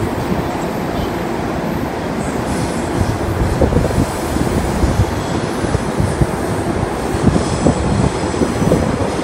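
Electric passenger train running through the station: a steady rumble with irregular wheel thumps that grow stronger from about three seconds in, and a faint high wheel squeal near the end.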